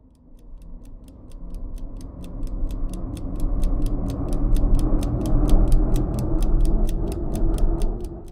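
Cinematic transition sound effect: a low rumbling swell that builds steadily under clock-like ticking at about five ticks a second, then cuts off suddenly near the end.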